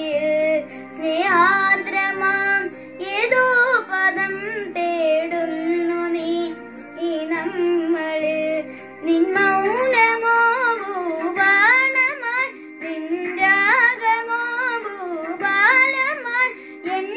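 Music: a solo high voice sings a slow melody full of sliding, ornamented notes, in phrases with short breaks, over instrumental accompaniment with a steady held drone tone.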